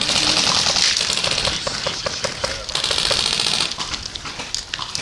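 Airsoft gun firing two rapid automatic bursts, a long one at the start and a shorter one about three seconds in.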